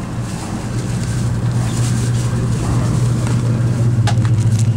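Steady low hum and rumble of a moving train heard from inside the passenger car. About four seconds in, a few light clicks and rustles of snack packaging being picked up.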